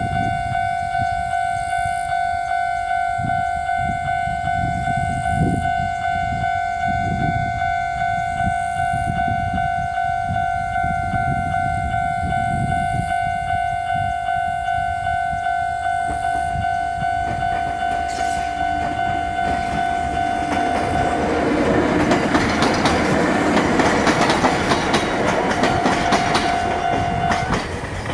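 Japanese level-crossing warning bell ringing steadily, a repeating two-tone electronic ding. A train passes over the crossing in the last several seconds with wheels clattering over the rail joints, and the bell stops near the end.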